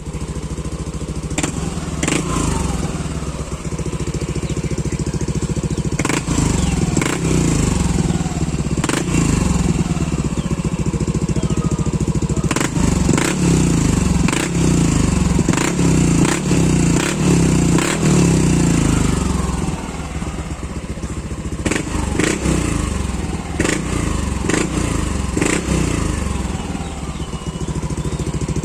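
Yamaha Aerox 155 scooter's single-cylinder four-stroke engine running through an aftermarket MT8 V3 power pipe exhaust, being revved in repeated blips over a steady idle. The revs rise and fall again and again through the middle, then settle back to a quieter, steadier idle for the last several seconds.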